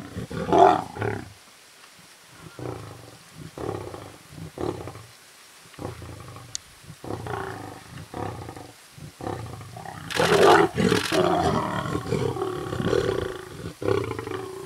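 Lions vocalising over a buffalo kill while feeding: a run of short growls, then a louder, longer outburst about ten seconds in, followed by more growling.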